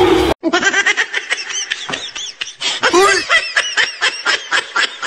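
Loud, high-pitched laughter in a quick run of short ha-ha bursts, starting as the music cuts off abruptly just after the start.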